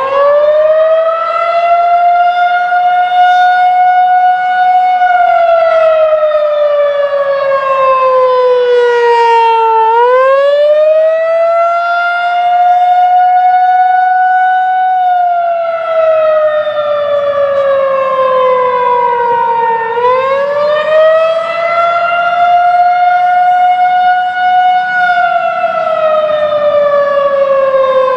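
Federal Signal 2001-130 AC electromechanical outdoor warning siren sounding a wail. It winds up to full pitch in the first couple of seconds. Then it holds a steady high tone, slides slowly down, and climbs back up, in a cycle of about ten seconds that runs three times.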